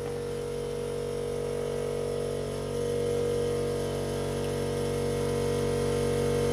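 A power tool's motor running steadily with a hum, turning the screw of a homemade coil-spring compressor as it squeezes the spring. It gets slightly louder about three seconds in.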